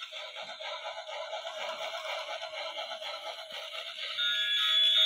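Toy Christmas train locomotive playing tinny electronic Christmas music from its small built-in speaker as it runs. About four seconds in, a steady held electronic tone comes in.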